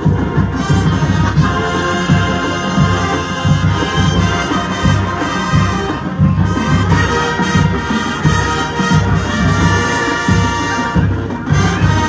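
High school marching band playing loudly, with brass chords over steady low drum beats.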